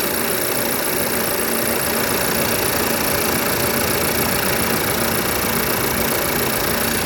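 A 2019 Audi Q5's 2.0-litre turbocharged four-cylinder engine idling steadily.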